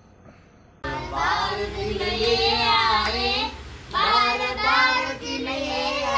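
A young girl singing solo, starting abruptly about a second in, with long held, wavering notes and a short pause midway.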